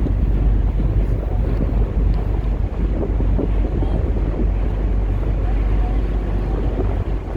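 Steady low rumble of a passing train, with wind buffeting the microphone.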